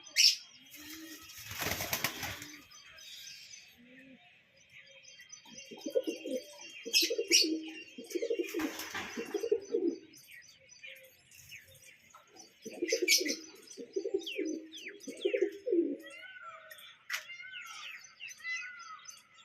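Pigeons cooing in two long runs, with a burst of wing flapping near the start and another in the middle. Smaller birds chirp throughout, with a quick run of repeated chirps near the end.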